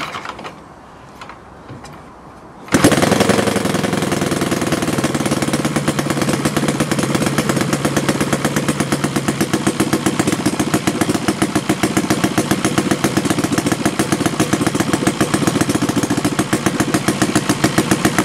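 ROTO 85 FSI twin-cylinder four-stroke gasoline model-airplane engine, spinning a wooden propeller, starts suddenly a little under three seconds in and then runs steadily with an even pulsing beat. It runs a little on the rich side on its default needle settings.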